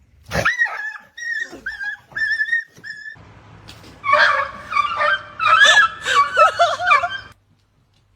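A dog whining, first with a few short high-pitched whimpers, then louder and more jumbled whining and yelps that cut off suddenly near the end.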